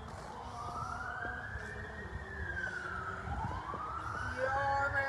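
Siren wailing: one slow rise and fall in pitch over about three seconds, then rising again.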